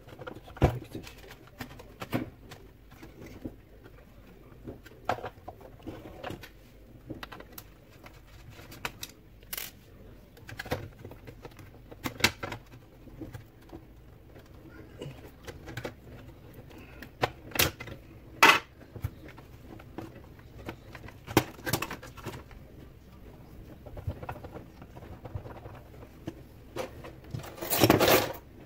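Plastic housing and internal parts of a Saeco Xsmall espresso machine being handled during disassembly, with scattered clicks and knocks. A longer, louder rattle comes near the end.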